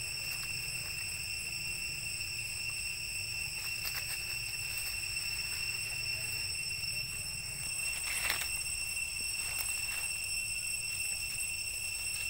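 Steady, high-pitched insect drone, one held tone with overtones, with a few brief clicks or rustles; the loudest comes about eight seconds in.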